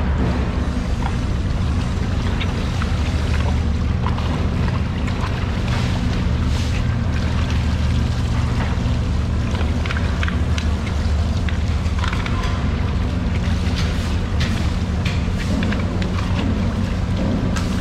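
Steady low mechanical drone of nearby machinery, with water from a hose running into the marlin's body cavity and scattered small knocks and clatters.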